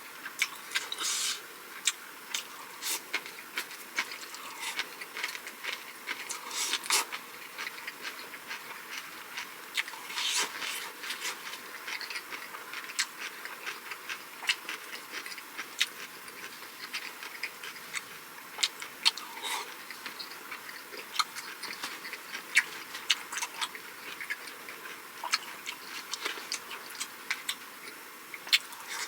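Close-miked chewing and mouth sounds of a person eating, with many sharp, irregular wet clicks and smacks over a faint steady hiss.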